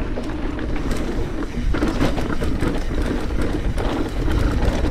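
Specialized Stumpjumper Evo mountain bike descending a dirt singletrack at speed: a steady rushing rumble of tyres over dirt and stones, with scattered clicks and rattles from the bike.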